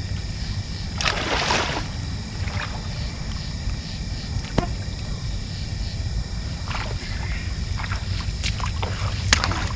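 Steady low rumble with a constant high insect drone over it; a brief rustling scrape about a second in and a few sharp clicks later.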